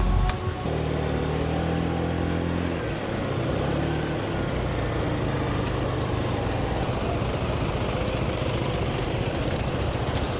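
A motor scooter's engine running with a steady hum, then from about three seconds in an even rush of wind and road noise over the engine as it rides. Music ends within the first moment.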